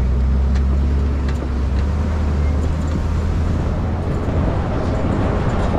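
Safari ride truck's engine running as it drives along, a steady low drone, with faint rattles from the open-sided vehicle.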